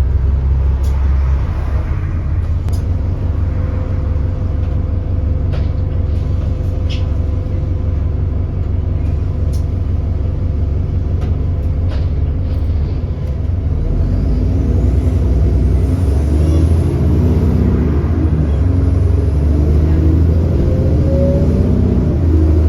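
Cummins ISB 6.7-litre diesel of an Alexander Dennis Enviro400 double-decker bus running steadily, with a few sharp clicks in the first half. Past the middle the engine pulls away and its note rises and falls through the ZF automatic gearbox's upshifts; the engine has an exhaust leak.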